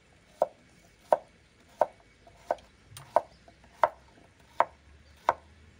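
Chef's knife chopping a peeled cucumber into chunks on a wooden cutting board: eight even knocks of the blade on the board, about one every two-thirds of a second.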